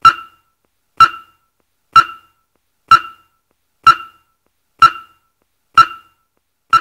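A short, pitched tick repeated evenly about once a second, eight times, each one dying away quickly.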